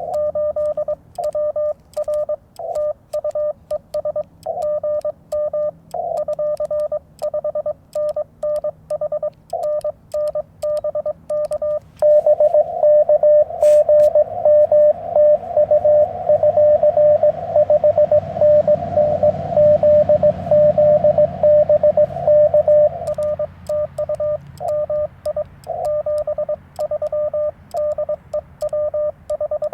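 Morse code (CW) from a Yaesu FT-891 transceiver: a single steady beep keyed on and off in dots and dashes, with band static underneath. From about twelve seconds in, the tone gets louder and runs almost unbroken over a swell of hiss for about ten seconds, then goes back to short keyed elements.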